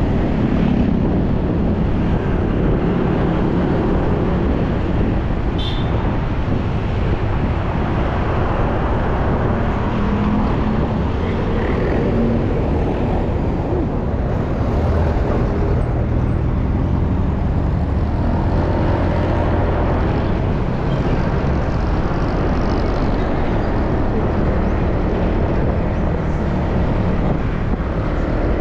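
Steady road noise of a moving vehicle: an engine running at an even pace under a constant rumble of wind and tyres, with no breaks.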